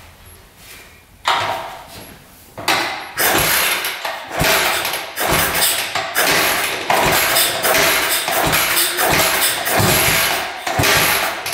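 1968 Harley-Davidson Sprint 250's single-cylinder four-stroke engine starting: it fires briefly about a second in, again a little later, then catches and keeps running roughly, its level surging up and down about twice a second.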